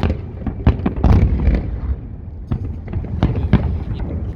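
Fireworks salute: a quick, irregular run of about a dozen sharp bangs and booms over a low rumble.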